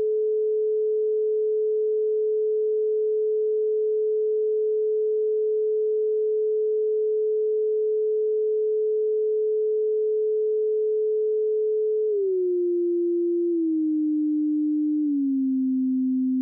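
Software-generated pure sine tone held steady at about 430 Hz, then stepping down in pitch in three small steps over the last four seconds, to about 260 Hz.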